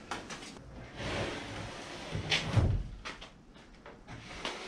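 Wooden fence panels scraping and knocking inside a van's cargo area as they are slid out: a scraping rush, then a heavy knock about two and a half seconds in, followed by a few lighter knocks.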